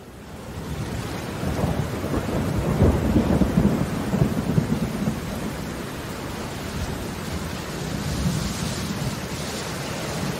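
Steady rain with a long roll of thunder that swells up about a second and a half in, is loudest around three seconds, and rumbles away back into the rain after about five seconds.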